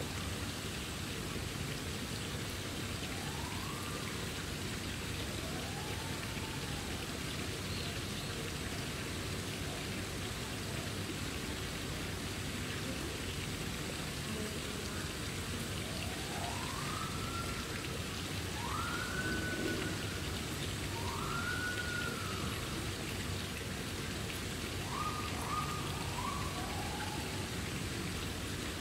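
Japanese macaques giving coo calls: short tonal calls that rise and fall in pitch. Two come in the first few seconds, and more follow in the second half, ending with a quick run of three. A steady background hiss runs underneath.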